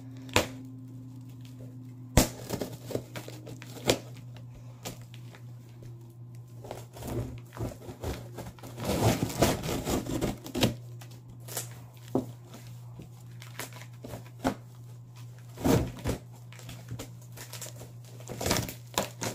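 Scissors cutting and stabbing through plastic shrink-wrap and cardboard on a large box: irregular sharp snips and clicks with crinkling of the plastic, denser in the middle. A steady low hum sits underneath.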